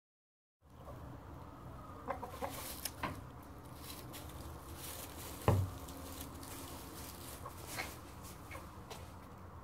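Black Marans hen with silver hackles clucking softly a few times as she sits laying in a straw nest box, with one short thump about five and a half seconds in.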